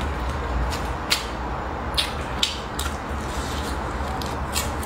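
Close-miked eating sounds: chewing and wet mouth clicks from a man eating stir-fried meat, with several sharp, separate clicks over a steady low hum.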